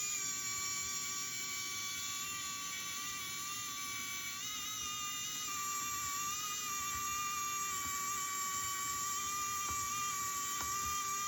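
Automatic electric screwdriver's motor running continuously with a steady high whine, with a few light clicks near the end.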